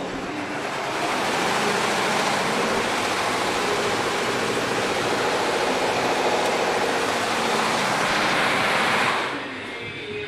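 15-head Richpeace multi-head embroidery machine running, a loud, dense mechanical clatter that drops away about nine seconds in.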